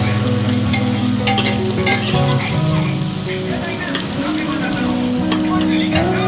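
Chopped onions sizzling in hot oil in an aluminium pressure cooker, stirred with a steel ladle that scrapes and clicks against the pot a few times. Background music plays throughout.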